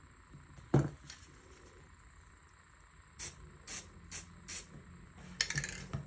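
Aerosol spray paint can sprayed in four short spurts, then a longer spray near the end, after a single sharp knock about a second in.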